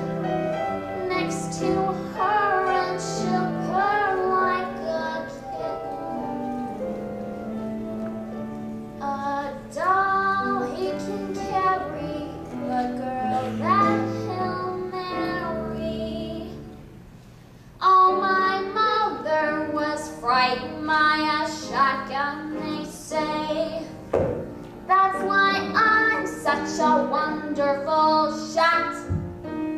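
A woman singing a show tune solo with instrumental accompaniment, the music dropping away briefly a little over halfway through before the singing resumes.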